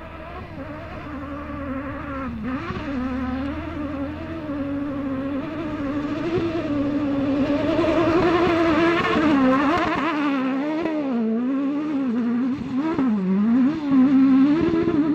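Off-road rally car engine revving hard. The note rises and falls over and over as the driver works the throttle over rough ground, and it grows louder over the first eight seconds or so.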